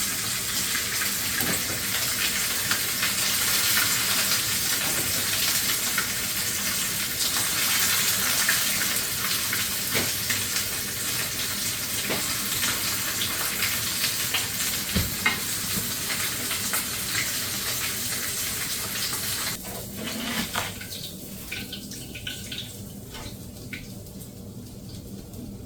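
A flour-breaded bluegill deep-frying in hot oil in a fish fryer: a steady crackling sizzle with many small pops. About nineteen seconds in the sizzle drops away abruptly, leaving a fainter hiss with a few crackles.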